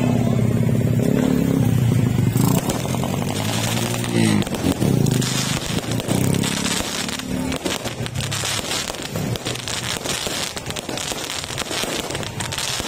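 Fireworks crackling, a dense run of rapid small pops as the shells burst into crackling stars. A motor vehicle engine runs nearby for the first few seconds, its pitch rising briefly a little later.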